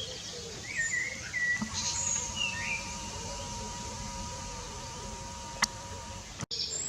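Waterside outdoor ambience: a few short chirping bird calls in the first half, under a faint steady buzzing hum that lasts several seconds, with a single click near the end.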